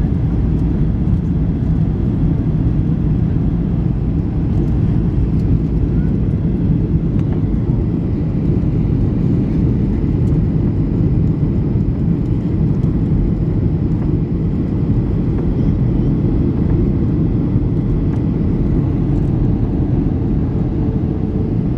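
Boeing 737-800 cabin noise heard from a window seat on descent: a steady low roar of the CFM56 engines and airflow, even throughout.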